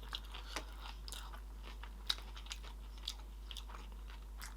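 Close-miked chewing of sushi: soft, wet mouth clicks and smacks scattered at uneven intervals, with a sharper click about two seconds in.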